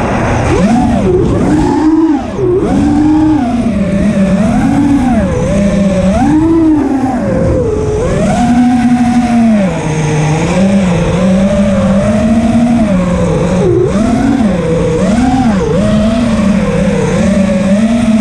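Racing drone's brushless motors and propellers whining, heard from the onboard camera, the pitch swooping up and down continually with the throttle during acrobatic flight.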